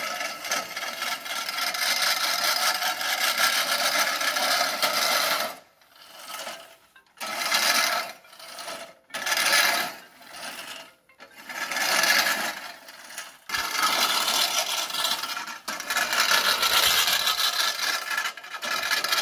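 Manual push reel mower's spinning cylinder blades cutting grass against the bed knife: a steady whirring rasp. For a few seconds in the middle it breaks into short bursts as the mower is pushed in short strokes, then runs steadily again.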